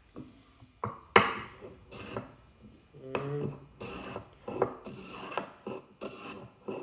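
Small Japanese hand plane cutting chamfers on wood: a run of short scraping strokes, roughly one a second, with a sharp knock about a second in.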